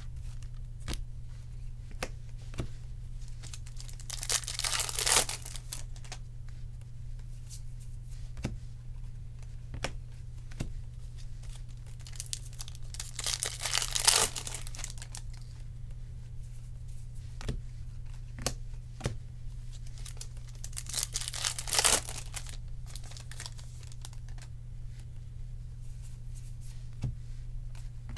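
Three foil trading-card pack wrappers torn open one after another, each a crinkly rip lasting a second or two, with short clicks of cardboard cards being flicked through and set down in between. A steady low hum runs underneath.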